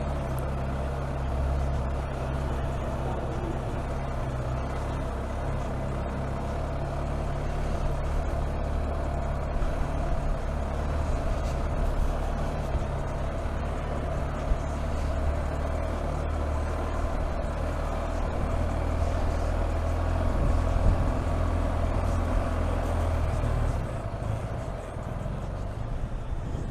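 Motorcycle engine running steadily at low town speed, with road and wind noise; the engine note drops about 24 seconds in.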